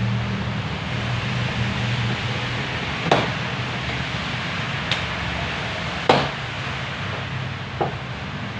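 Four short, sharp knocks or clicks, a second or two apart, from hand tools and plastic fittings as a car bumper is taken off. A steady hum runs underneath.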